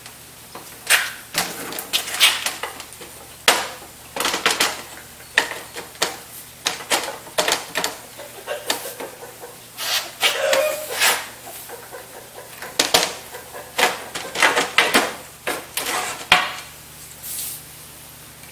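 Stained wooden frame strips and a stained glass panel knocking, clacking and scraping against each other and the tabletop as the strips are worked onto the glass edge: irregular hard taps and short scrapes, several a second at times.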